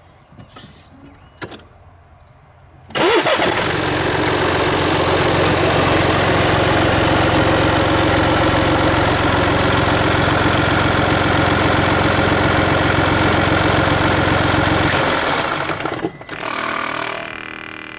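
Mini Cooper's three-cylinder diesel engine is started about three seconds in, runs steadily for about twelve seconds and is switched off; shortly after it stops comes a brief hissing sniff lasting under a second. This after-shutdown sniffing is an abnormal noise, which the owner suspects is air hissing through a dirty throttle valve, while fearing a faulty EGR valve.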